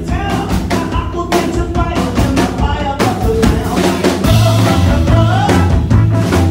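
Live rock and roll band playing: drums with a steady beat, electric guitar and plucked upright bass. About four seconds in, a cymbal wash and heavier low bass notes come in.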